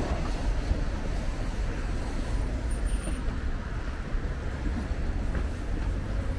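Steady city road traffic noise: motor vehicles passing on a busy street, with a deep rumble underneath.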